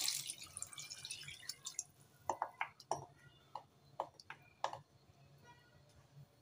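Water pouring and splashing into a pan of dal and bottle-gourd pieces, tailing off about a second and a half in. It is followed by a scattered series of small liquid drips and plops over the next few seconds.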